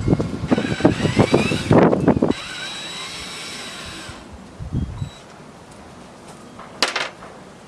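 Power drill backing screws out of barn boards: the motor whines up in pitch over the first two seconds, runs steadily until about four seconds in, then stops. A sharp knock comes near the end.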